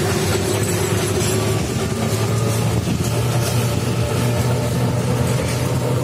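Passenger train carriages running past on the track, with a steady engine hum underneath. The last carriage goes by near the end.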